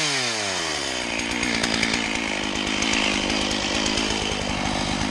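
Chainsaw engine dropping from a brief rev back to idle in the first second, then idling steadily.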